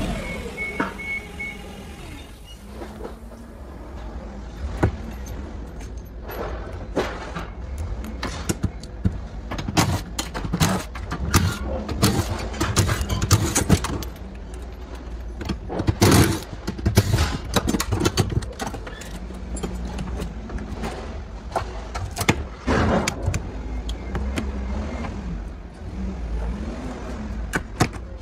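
Clinks, clanks and knocks of hand tools and loose metal parts as a car's interior is dismantled, with a few brief whirs of a cordless drill/driver.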